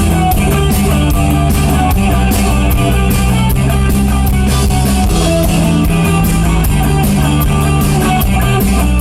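Rock band playing an instrumental passage between vocal lines: guitars and bass over a steady drum kit beat.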